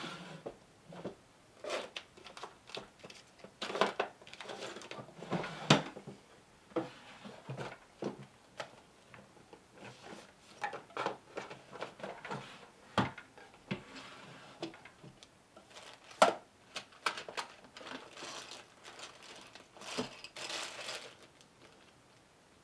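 Rummaging in a wooden desk drawer: the drawer sliding, and objects knocking and clattering against the wood, with rustling, in irregular bursts.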